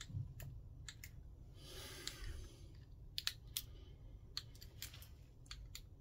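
A dozen or so sharp clicks, irregularly spaced, over a low steady hum, with a short rushing swell about two seconds in.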